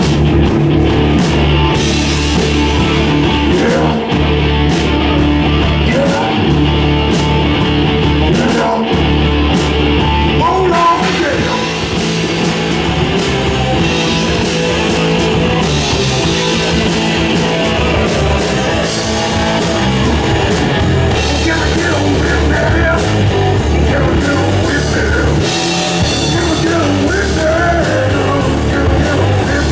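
Live rock band playing: electric guitars, bass guitar and drum kit, with a vocalist singing into a handheld microphone.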